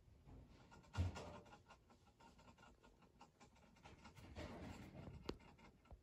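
Hamster licking and mouthing the metal sipper tube of a water bottle: faint rapid clicking, with a knock about a second in and a denser run of clicks about four to five seconds in.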